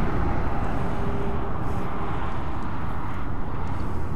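Wind buffeting the camera microphone: a steady low rumble with a thinner hiss above it.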